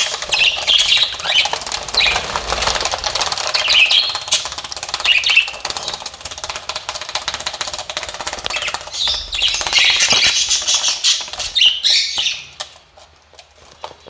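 Budgie wings flapping rapidly against a plastic tray, with bouts of harsh budgie squawking and chirping. It dies down near the end.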